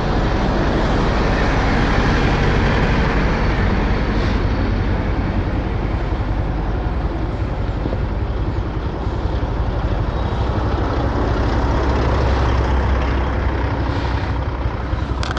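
Steady engine and road noise from motor vehicles, a continuous low hum under a dense rushing noise.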